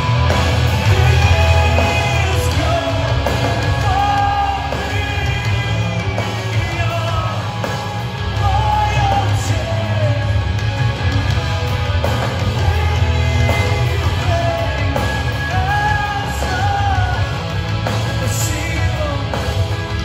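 Metalcore band playing live: distorted electric guitars, bass and drums under a sung lead vocal, heard from within the crowd.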